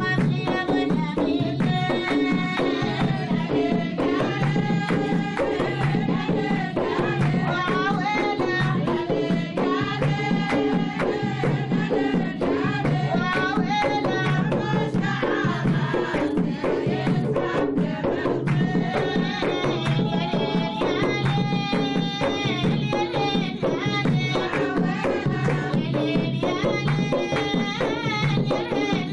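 Omani folk wedding song: women singing together over hand drums, percussion and clapping.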